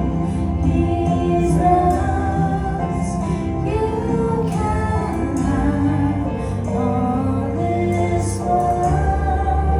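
Gospel worship music: singing voices holding and gliding between long notes over instrumental backing with a steady bass.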